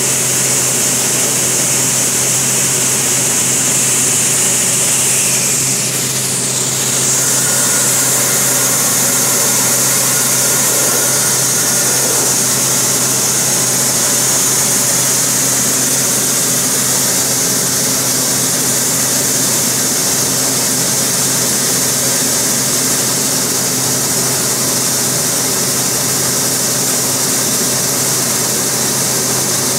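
Five-fan gravity separator running: its fans blowing air up through the seed deck make a steady loud drone, a constant hum with a strong high hiss on top.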